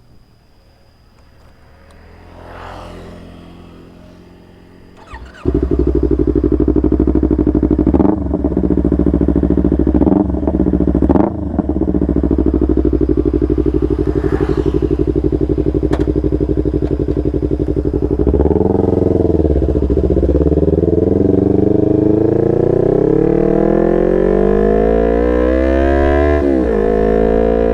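Yamaha R25 parallel-twin engine through a Proliner TR1R short aftermarket exhaust. It fires up about five seconds in and idles steadily with a few sharp cracks, then is revved in long rising sweeps over the last ten seconds.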